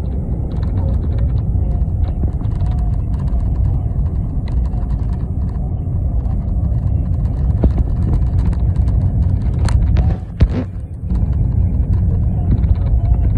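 Steady low road and engine rumble inside a moving car's cabin. About ten seconds in, the rumble dips briefly around a single sharp click.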